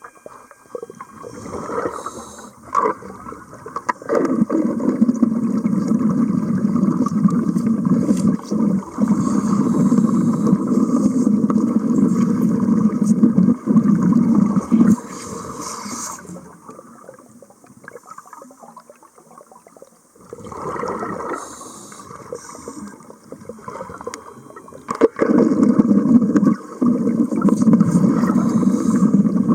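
Underwater arc welding: the arc burns in two long runs with a steady bubbling, gurgling noise, about twelve seconds and then about five, with a quieter pause between them.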